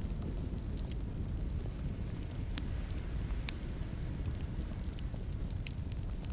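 Wood fire crackling in a fireplace: a steady low rumble of the flames with scattered sharp pops, the two loudest a little under a second apart near the middle.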